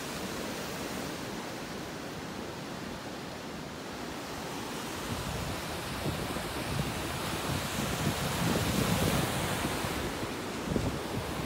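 Ocean surf washing over a rocky shoreline, a steady rush, with wind buffeting the microphone in gusts that grow stronger in the second half.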